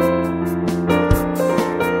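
Background music: piano-led instrumental with sustained chords over a steady beat.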